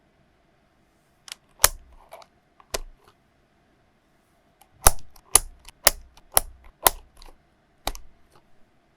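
Keys pressed one at a time on a COX CK01SL mechanical keyboard with PBT keycaps and 45 gf low-noise white switches. Each keystroke is a sharp click with a low thud. There are two strokes early, then a run of five about half a second apart, then a few lighter ones.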